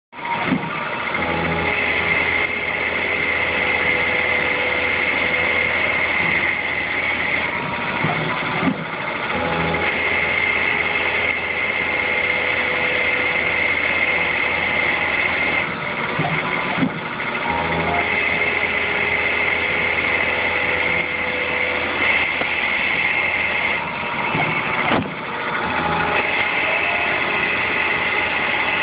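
Tormach Duality Lathe on a PCNC 1100 mill, turning a part at 1000 RPM: a steady spindle hum with a high whine. About every eight seconds there is a short click and the hum changes.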